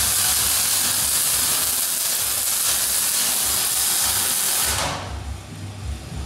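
MIG welding arc on steel, hissing and crackling steadily, then cutting off sharply when the torch trigger is released near the end. A low rumble remains after the arc stops.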